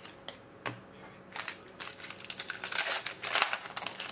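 Trading card pack wrapper crinkling and cards being handled: a few sharp clicks, then a run of crackly rustling from about a second and a half in.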